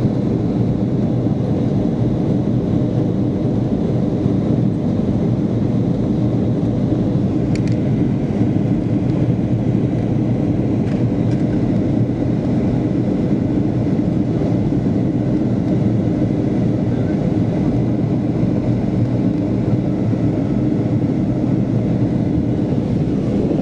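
Steady cabin noise of a jet airliner in its climb after takeoff: engine and airflow noise, even and unchanging, heard from inside the cabin.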